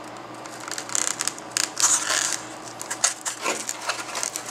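Crinkling and rustling of the paper lining and takeout box as they are handled, in irregular crackly bursts.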